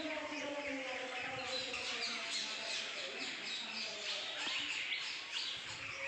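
A chorus of many small birds chirping at once: dense, overlapping quick chirps that sweep downward in pitch.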